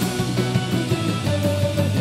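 Celtic punk band playing live: an electric violin bows a melody of held notes that step in pitch, over the full band with a steady cymbal beat.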